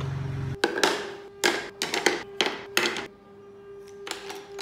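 Carved wooden model-car parts handled and set down on a table: a quick run of about half a dozen hard wooden knocks and scrapes over the first three seconds, then one more near the end.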